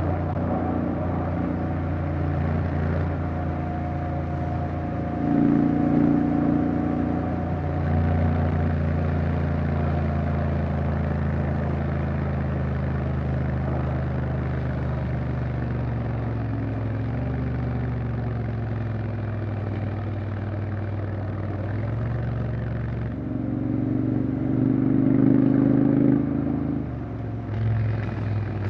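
Honda X-ADV 750's parallel-twin engine running on the move, its pitch stepping up and down through gear changes, with two louder spells of acceleration about five seconds in and again near the end.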